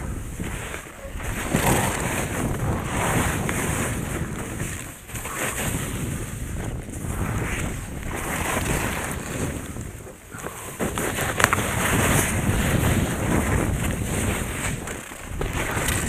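Skis scraping and carving over firm, skied-off snow during a fast downhill run, with wind buffeting the microphone; the rushing noise swells with each turn, about every one to two seconds. A single sharp click sounds a little past the middle.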